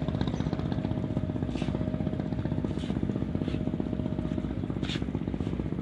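Small boat engine running steadily with a fast, even putter. A few short, high sounds break through over it.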